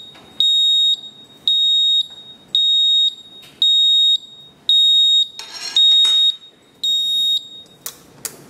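Stack light's alarm buzzer beeping, a high steady tone of about half a second repeated about once a second, signalling that the safety light curtain is blocked. The beeping stops near the end, followed by two sharp clicks as the reset button is pressed.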